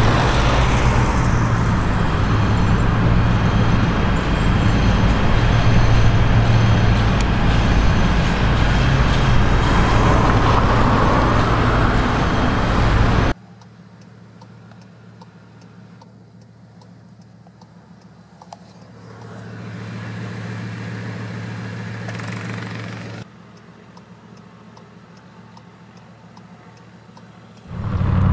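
Bugatti Veyron Super Sport's quad-turbo W16 engine running loudly with a deep, steady rumble as the car moves off slowly. It cuts off abruptly to a quiet, muffled low hum heard from inside a following car, which swells for a few seconds and then drops back, before a sudden loud rise right at the end.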